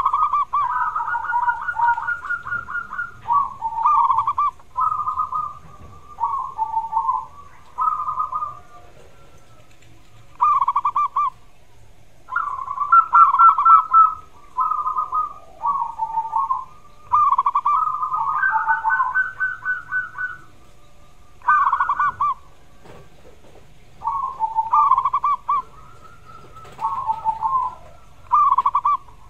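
Zebra dove (perkutut) singing: phrase after phrase of quick, stuttering coos, each about a second long, with short pauses between them.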